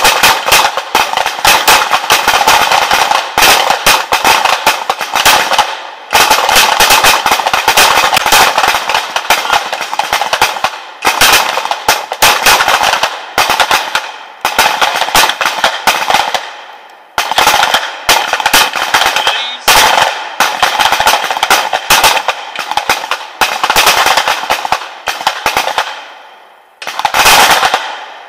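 Pistol shots fired by many shooters along a firing line, the shots overlapping in a dense, irregular crackle with a few brief lulls.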